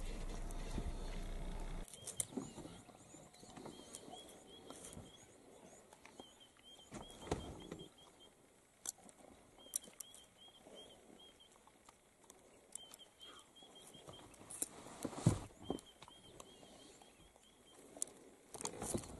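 Faint outdoor ambience: runs of short high chirps repeating several times a second, with scattered sharp clicks and knocks, the loudest about three-quarters of the way through. A steady low hum at the start cuts off suddenly.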